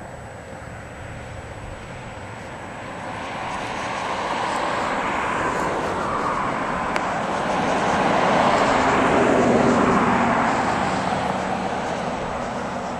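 A passing vehicle: its noise swells over several seconds, is loudest about two-thirds of the way through, then fades away.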